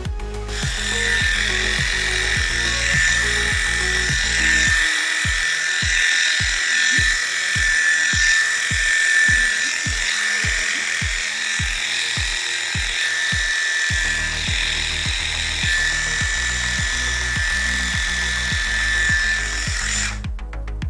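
Electric pet clipper running steadily with a high whine as it shaves a cat's long white coat. The whine cuts off suddenly near the end. Background music with a steady beat plays underneath.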